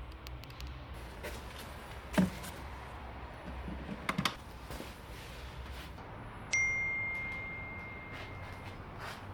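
A few sharp knocks, then a single clear metallic ding that rings at one steady pitch and fades over about two seconds.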